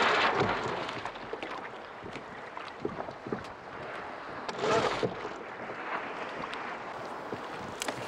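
Sea water sloshing and lapping against a sailing kayak's hull, with wind on the microphone. There are louder surges of water noise near the start and about five seconds in, and scattered light ticks.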